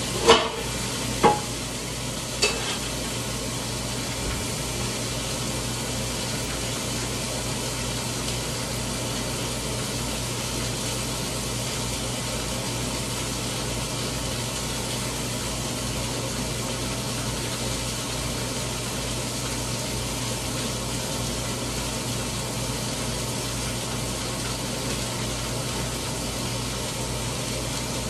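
A frying pan sizzling steadily on the stove over a low steady hum, with three sharp knocks in the first few seconds.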